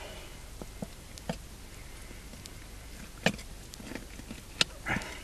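Scattered small wet clicks and squelches from hands working inside a whitetail buck's opened body cavity during field dressing, with two sharper clicks about three and four and a half seconds in and a short rustle near the end.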